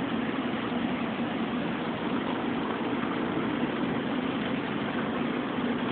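Steady low hum of an idling engine, even and unchanging throughout.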